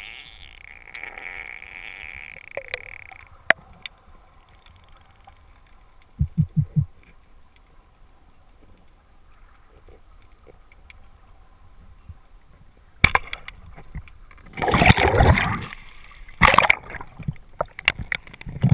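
Underwater speargun shot: a sudden loud crack about two-thirds of the way in, then several seconds of loud rushing and knocking as the shaft and a speared mullet thrash among the rocks. A steady high whine in the first few seconds stops abruptly.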